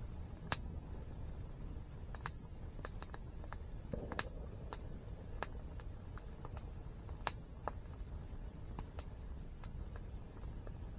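Campfire crackling, with irregular sharp pops of burning wood. The loudest pops come about half a second in, about four seconds in and about seven seconds in, over a steady low rush of a nearby waterfall.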